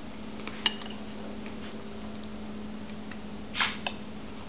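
Eating sounds with a metal spoon and a porcelain cereal bowl: one sharp click about two-thirds of a second in, then a short scrape and a clink of the spoon in the bowl near the end, over a steady low hum.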